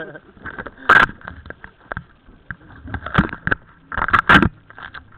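Irregular knocks and clattering right at the microphone, loudest in a cluster near the end, over a faint steady high whine.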